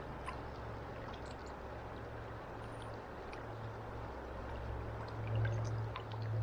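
River current flowing steadily, with faint scattered water ticks and a low rumble that grows louder about five seconds in.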